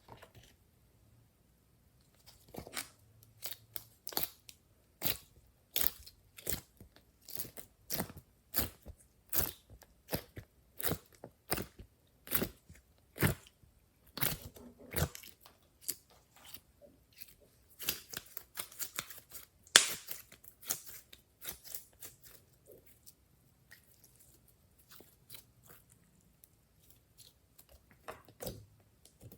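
Glossy slime being squeezed and poked by hand, giving sticky clicks and pops about once or twice a second. The loudest pop comes about two thirds of the way through, and the clicks grow sparser and fainter near the end.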